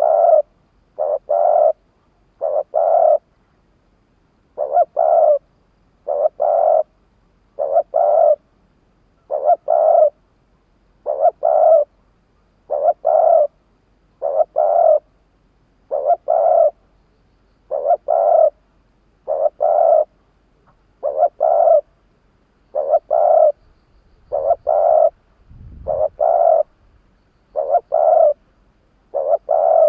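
Spotted dove cooing: a steady series of short, paired coos about every second and a half, the call of a decoy dove used to draw in wild doves. A faint low thump comes about three-quarters of the way through.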